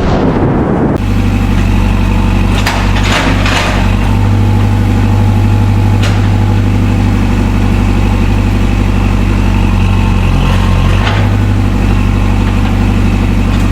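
An engine idling steadily, with a few short knocks over it early on, about six seconds in, and again about eleven seconds in.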